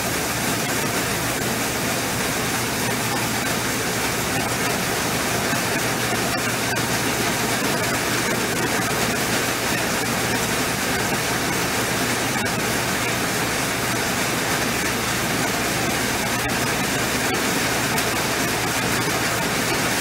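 Grain auger running steadily, carrying wheat up its tube and pouring it into a gravity wagon, with the tractor beside it running. It is a continuous, even mechanical noise with no pauses.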